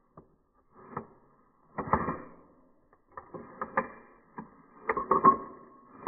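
Glock 43X pistol's slide being worked on its frame by hand: a series of irregular sharp clicks and rattling scrapes of metal against polymer, with a brief metallic ring near the loudest click.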